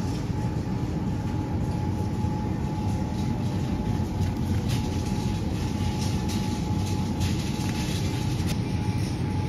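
Steady low hum and rumble of a supermarket's refrigerated cases and ventilation, with a faint steady whine over it. A few light clicks come as a plastic yogurt cup is lifted from a wire rack.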